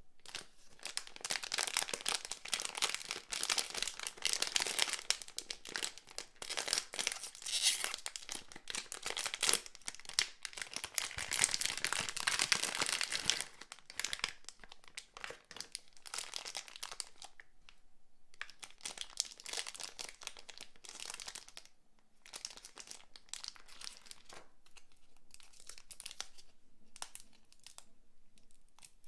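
Packaging wrapping being handled and torn open, crinkling and tearing. Dense, loud crinkling for about the first half, then quieter, scattered crinkles and rustles.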